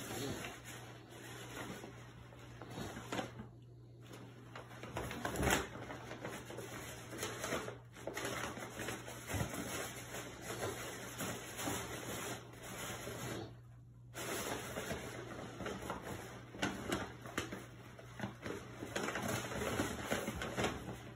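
A brown paper shopping bag rustling and crinkling as a cat wriggles about inside it, in irregular scrapes with short pauses, one louder bump about five seconds in. A steady low hum runs underneath.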